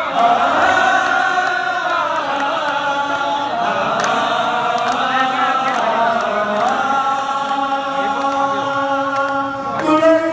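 A group of men singing a devotional chant together in unison, led by a singer on a microphone, with long held notes that glide between pitches.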